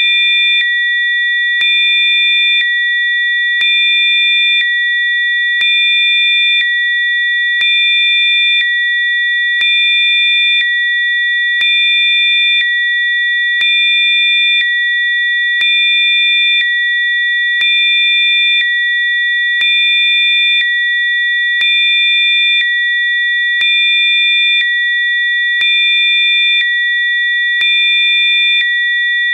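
Electronically generated Rife-frequency sine tones sounding together as a steady, high, pure chord. The mix and level step slightly up and down about once a second, with a faint click at each change.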